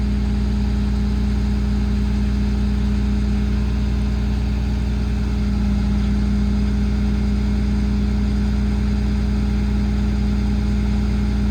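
PACCAR PX-6 diesel engine of a Kenworth T370 service truck running steadily with the PTO engaged, driving the hydraulic crane as it operates.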